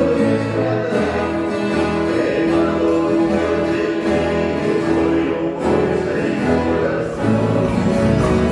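Sertanejo music: voices singing long held notes in harmony over instrumental accompaniment with a steady low pulse.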